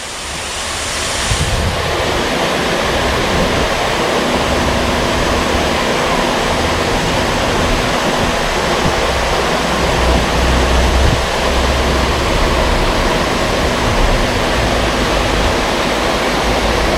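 Water of a small creek waterfall rushing steadily.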